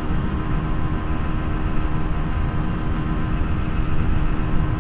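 Honda Beat automatic scooter's small single-cylinder engine held flat out near its top speed, a steady drone under heavy wind rush on the microphone.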